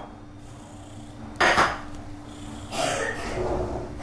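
Household clatter: a sharp double knock about a second and a half in, then a longer rattling, scraping noise about three seconds in.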